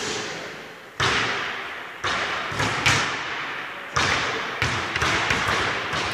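A basketball bouncing on a wooden gym floor: a string of sharp, irregularly spaced thuds, each ringing on in the hall's echo.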